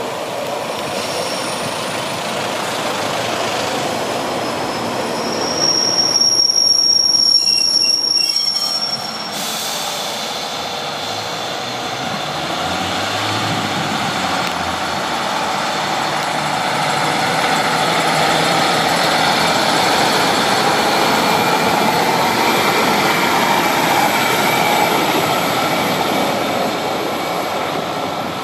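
Class 142 Pacer diesel railbus running in on the rails, with a high-pitched wheel squeal for a few seconds as it slows. Then a Class 150 Sprinter diesel multiple unit pulls away, its engine and wheels growing louder for several seconds before easing off.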